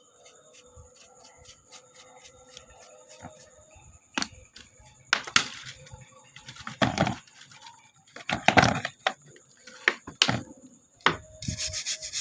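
Metal clatters and scrapes from working on a car's hood latch, then a fast scrubbing with a brush starting near the end as the dirty, sticking latch is cleaned.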